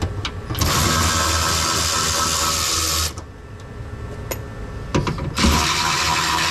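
A cordless power tool runs in two bursts, starting and stopping suddenly: the first lasts about two and a half seconds, and the second starts near the end. It is spinning out fasteners, with a few small clicks between the bursts.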